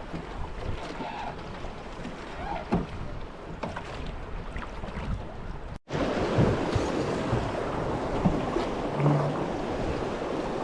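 River water rushing around a drifting boat, with wind on the microphone and a few faint knocks. A little over halfway through the sound cuts out for an instant and comes back louder.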